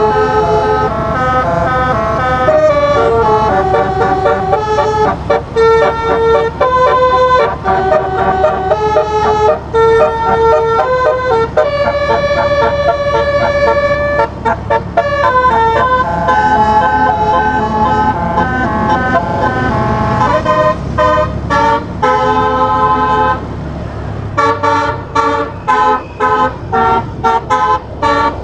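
A basuri telolet horn, a set of twelve electrically driven horn trumpets sounded by a MIDI module, playing a tune in held notes and chords over a low steady rumble. From about 24 seconds in the notes turn short and rapid.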